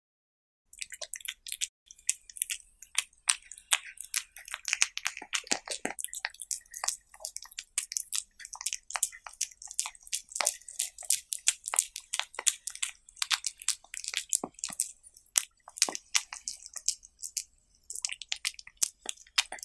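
Cat eating close to the microphone: rapid wet chewing clicks, several a second, starting about a second in.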